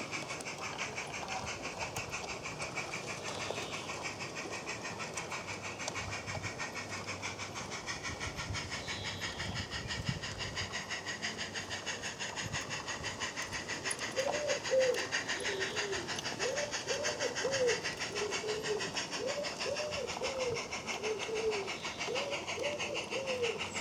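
16mm-scale live steam model locomotive hauling a train along garden railway track, with a fast, even beat of exhaust and wheels on rail. In the second half a bird calls repeatedly in short phrases.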